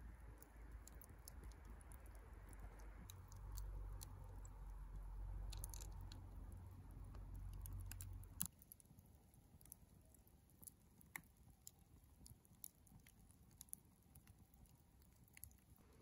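Wood fire of burning logs crackling quietly, with scattered small pops and ticks. A low rumble under it stops abruptly about eight seconds in, right after the loudest pop.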